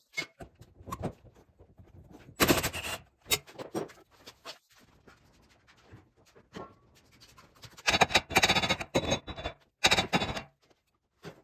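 Work on a car's bare front wheel hub and steering knuckle during a wheel bearing removal: scattered clicks and three bursts of rapid rattling and scraping, the longest about eight seconds in.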